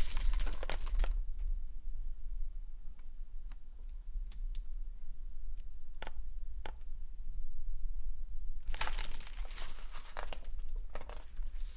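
A hardcover picture book being handled: the pages and cover rustle as it is lifted up close, a few light taps and clicks come while it is held still, and more rustling comes near the end as it is brought back down. A low steady hum sits underneath.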